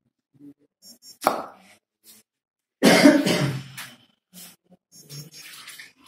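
A person coughing, loudest about three seconds in, with a shorter sharp sound just over a second in.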